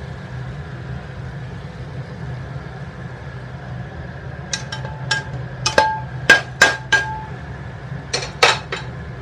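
Stainless steel bowl and cookware knocking together as fried chicken pieces are shaken out of the bowl into the curry pan. About a dozen sharp metallic clinks with a short ring come in quick runs from about halfway through, over a steady low hum.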